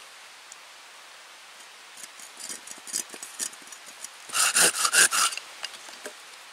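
Folding hand saw cutting across a split wooden stave. A few light strokes come first, then about five quick, louder strokes about four seconds in.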